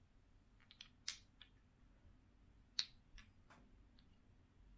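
Small glass nail polish bottles handled in the hand: a scattering of faint, short clicks and taps over near silence.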